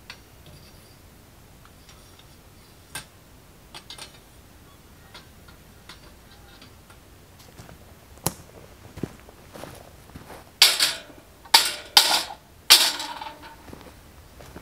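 Handling of camp cooking gear: scattered light clicks and knocks, then about ten seconds in a run of loud scraping, rattling bursts with a short metallic ring as a metal item is set on a steel camp-grill grate.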